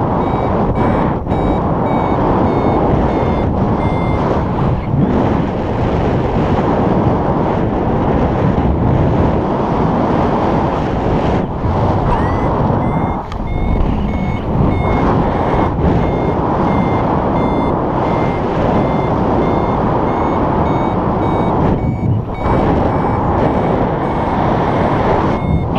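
A paragliding variometer beeping in runs of short, evenly spaced high beeps, which signals that the glider is climbing in lift. The beeps stop for several seconds in the middle and come back with a short rising chirp. Heavy wind noise buffets the microphone and is the loudest sound throughout.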